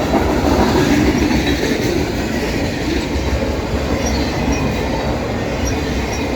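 A long CSX mixed freight train's cars rolling past at close range: a steady, loud rumble and clatter of steel wheels on the rails.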